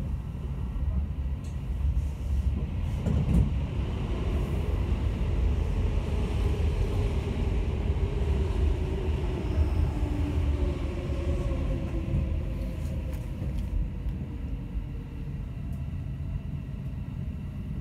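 Cabin noise of a Kintetsu 5800 series electric commuter train running: a steady low rumble of wheels on rail, with a traction-motor whine that shifts in pitch. It grows louder for a while in the middle, then eases.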